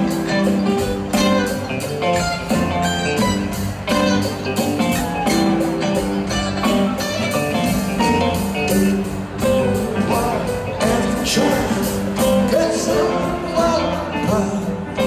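Live rock band playing at full volume with guitars and a steady drum beat, heard from the crowd in a large arena.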